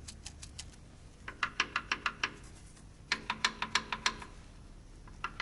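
Quick runs of light metallic clicks, about seven or eight a second, three short runs in all: the connecting rods of a Mercedes-Benz OM501 engine being pushed side to side on their crankshaft journals to check that each moves freely.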